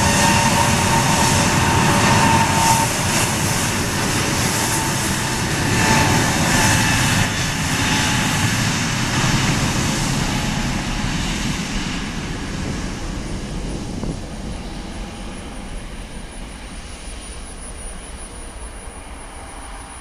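Airbus A321neo turbofan engines at takeoff thrust as the jet accelerates along the runway: a loud rushing jet noise with a high engine whine. The sound is strongest at first, then fades steadily as the aircraft moves away.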